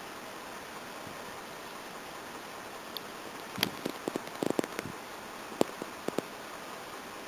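Steady hiss of rain, with scattered sharp taps of raindrops striking the car starting about halfway in, irregular and a few at a time.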